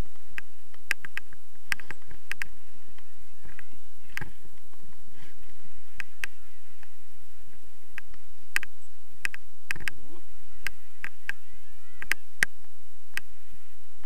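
Footsteps crunching on snow: short, sharp crunches at an uneven walking pace, some in quick pairs, with faint squeaks from the boots on the snow.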